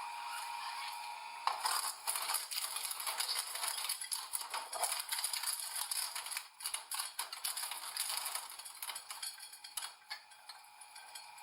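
Something crackling and snapping as a machine crushes it: a dense run of sharp cracks that thins out in the second half.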